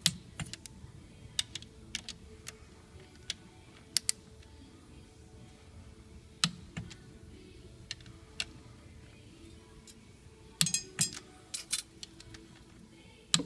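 Ratchet and click-type torque wrench clicking as the oil pump bolts are tightened to 18 ft-lb: single sharp metallic clicks every second or so, then a quick run of clicks near the end.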